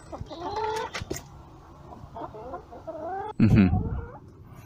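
Domestic hens clucking close to a handheld microphone: a string of short rising-and-falling calls, then a louder, lower-pitched sound about three and a half seconds in.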